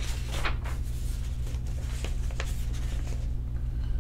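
A paperback picture book being handled and its page turned: a few soft paper rustles and taps in the first three seconds, over a steady low hum.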